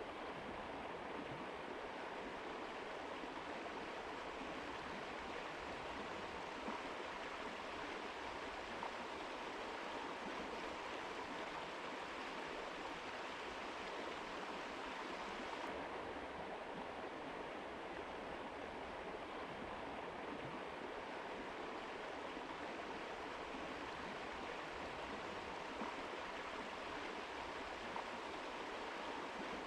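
Mountain river running steadily over rocks, an even rush of water; the high hiss dims slightly about halfway through.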